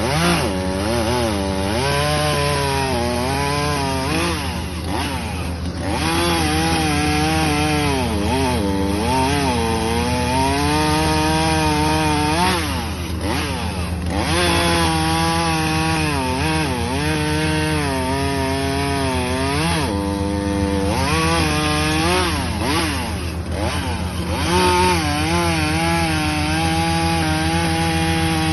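ZimAni 450 (a Husqvarna 450 copy) two-stroke chainsaw running and cutting wood. The engine pitch repeatedly sags under load and climbs back again.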